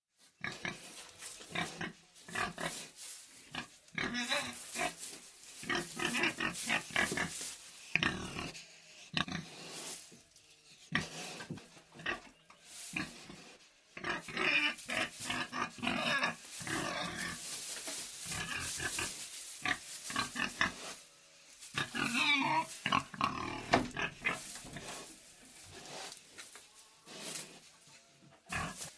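Pig in a sty grunting over and over in short irregular bursts, with some longer, higher calls now and then.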